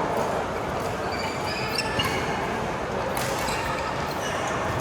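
Badminton play on an indoor court: shoes squeaking on the court floor and a few sharp racket strikes on the shuttlecock, over a steady background hum of the hall.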